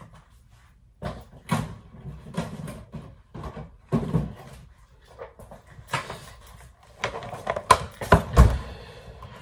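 Kitchen handling sounds: irregular knocks and bumps as food packages, cupboard doors and utensils are moved about, with the sharpest knocks near the end.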